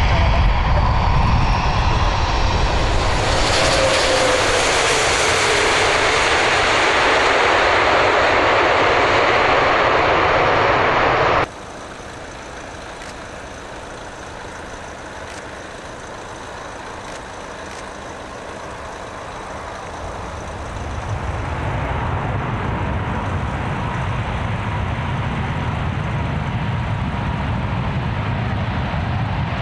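Airbus A380 four-engine jetliner: loud, steady jet noise with a falling whine as the plane passes close. About a third of the way in it cuts off suddenly to quieter jet noise, which builds again about two-thirds through with a steady whine as the engines power up on the runway.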